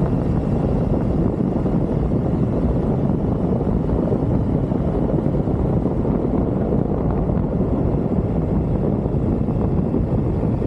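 Triumph Tiger motorcycle under way at a steady speed: a constant rumble of engine and wind on the microphone, with no gear changes or revving.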